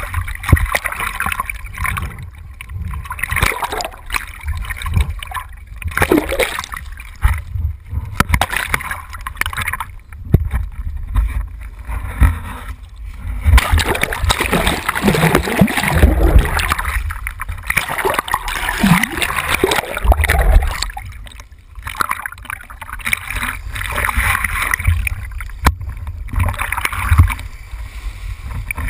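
Sea water rushing and splashing over a handheld action camera as a kiteboarder is pulled through choppy water, with wind buffeting the microphone; the sound surges and drops unevenly as the camera dips into the water and comes out again.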